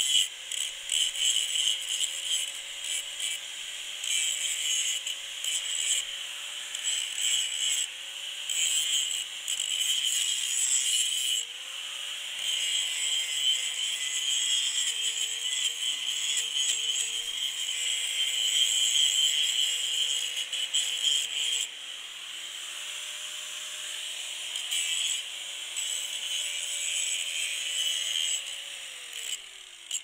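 4½-inch angle grinder with a general-purpose grinding disc grinding heavy rust off a backhoe's steel frame: a steady motor whine under a harsh metallic rasp, the whine sagging slightly as the disc is pressed into the metal. The grinder winds down near the end.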